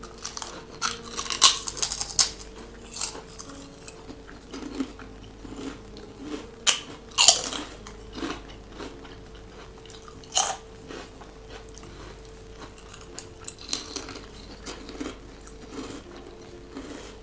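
Crunching and chewing of crispy fried dried-fish crackers, in irregular bites.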